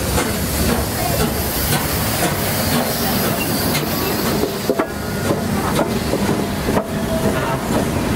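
NSW C38 class 4-6-2 steam locomotive 3801 rolling slowly past at close range: a steady hiss of steam over the clank and knock of its running gear and wheels on the rails.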